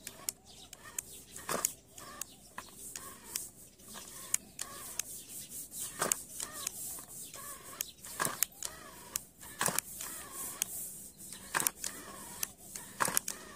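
Homemade wired RC toy tractor struggling stuck in loose sand, its plastic wheels and gears giving irregular sharp clicks and knocks as it spins and bucks.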